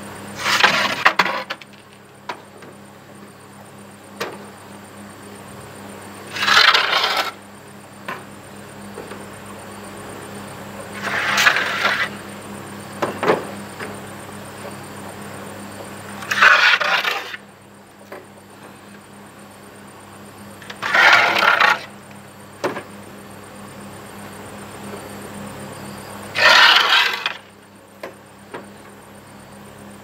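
Split bamboo slats clattering as they are picked up and laid onto a bamboo pole frame: a hollow rattle about every five seconds, six times, with a few single sharp knocks between them.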